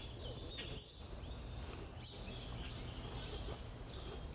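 Several birds chirping, short high calls overlapping one another, over a steady low rumble.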